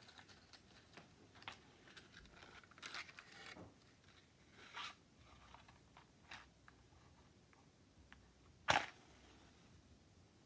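Faint rustling and small clicks of handling, then one short, sharp scrape near the end: a wooden match struck on its box.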